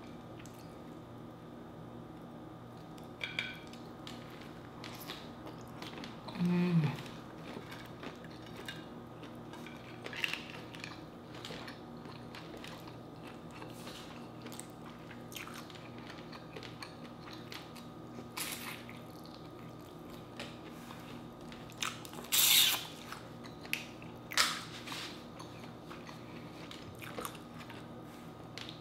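Close-miked eating of a seafood boil: chewing shrimp and peeling crawfish shells with the fingers, giving soft wet mouth sounds and scattered small clicks over a faint steady hum. A couple of louder, crisp sounds come about three quarters of the way through.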